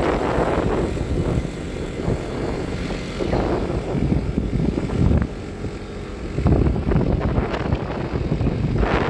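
A moving vehicle's rumble with wind buffeting the microphone, surging and easing in irregular gusts.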